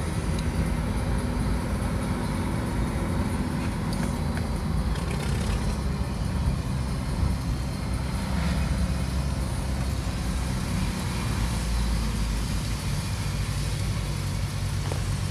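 Car engine and road noise heard from inside the cabin, a steady low drone whose pitch shifts a few times as the car changes speed.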